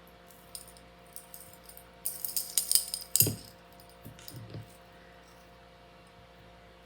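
Metal jewellery chains jingling and clinking as they are handled, with a quick flurry of light metallic clinks a little after two seconds. A short low sound comes just after three seconds, and two fainter ones follow about a second later.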